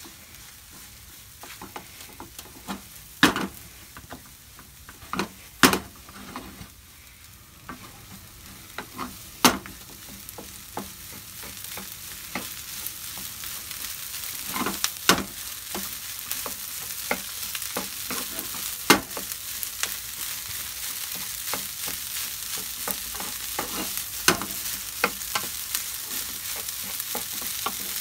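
Wooden spatula breaking up and stirring cooked rice with chopped red sausage, onion and green pepper in a hot frying pan, with sharp irregular knocks of the spatula against the pan. The frying sizzle grows steadily louder from about halfway through.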